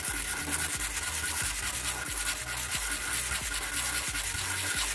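A piece of amber being sanded by hand on fine-grit black sandpaper: a continuous scratching of quick back-and-forth strokes. This is the finer-grit stage of hand sanding, wearing the amber down to a dust.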